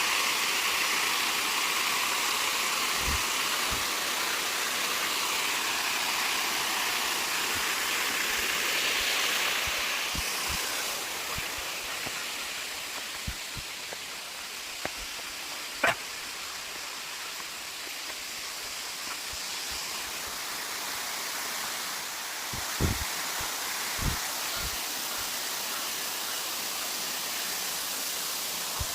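Steady rush of a waterfall's falling water, easing slightly partway through. A few brief knocks and one sharp click break in over it.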